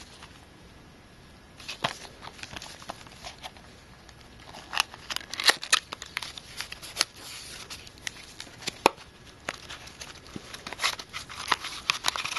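Packaging being handled: a small cardboard box opened and a foil anti-static bag pulled out in gloved hands, giving a run of crinkles, scrapes and clicks. It is sparse for the first couple of seconds and busiest from about four seconds in.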